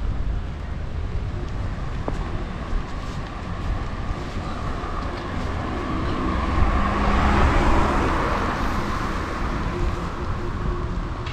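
Street traffic: a motor vehicle passes close by, swelling to its loudest about seven to eight seconds in and fading again, over a steady low rumble.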